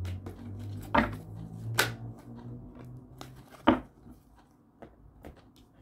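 A deck of tarot cards being shuffled and handled between the hands: soft card rustling with three sharper snaps of cards, about a second in, near two seconds and just before four seconds.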